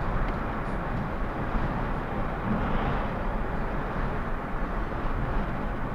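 Steady road and engine noise of a car driving at a constant speed, picked up by a dashcam inside the cabin.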